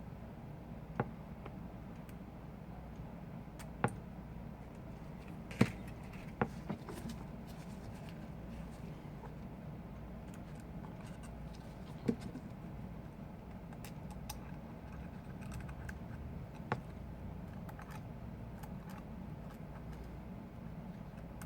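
Small tools clicking and tapping against the iPhone 5's parts during a repair, a handful of sharp clicks scattered irregularly, over a steady low background hum.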